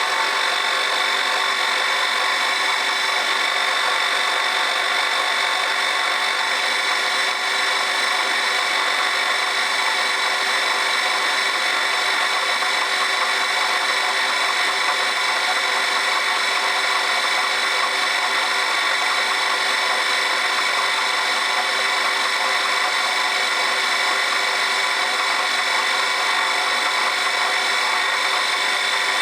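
Small hobby machine tool's motor and spindle running at a steady speed while a clearance hole is drilled in a small metal part: an unchanging whine made of many fixed tones.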